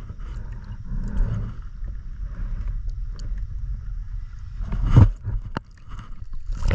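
Sea water sloshing and splashing around a microphone at the surface, the camera dipping in and out of the water, with one louder splash about five seconds in.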